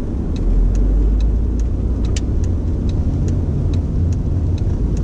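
A car driving on snow-covered roads, heard from inside: a steady low engine and road rumble, with a light ticking about two to three times a second.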